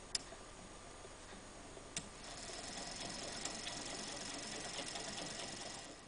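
Small homemade Stirling engine running with a light, rhythmic ticking. There is a sharp click near the start and another about two seconds in. After the second click the running gets louder, with a thin high tone, likely from the small DC motor it drives as a generator.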